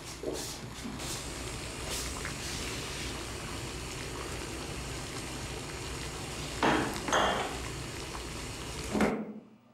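Bathwater running from a tap into a bathtub, a steady hiss, with a few louder knocks or splashes about two-thirds of the way through and again just before the sound cuts off.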